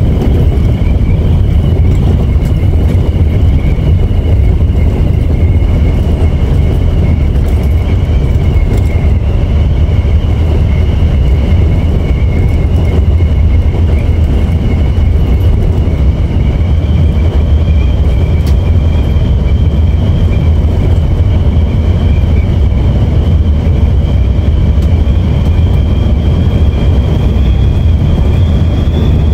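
Coach bus driving at highway speed, heard from inside: a loud, steady low rumble of engine and road, with a high whine that holds steady and rises slightly near the end.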